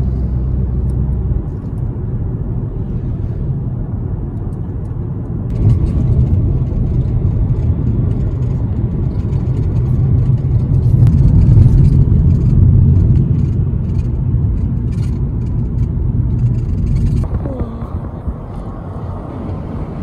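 A car on the move, heard from inside: a steady low rumble of road and wind noise. Its level changes abruptly a few times and is loudest about halfway through.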